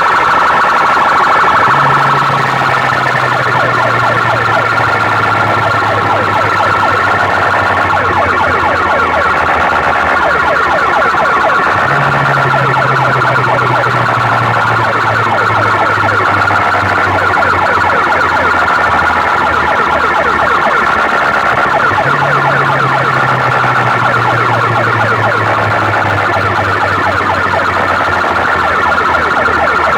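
Competition DJ sound system of stacked box speakers playing a siren-like electronic effect track very loud: warbling wails over a deep bass tone that slides down and starts again about every ten seconds.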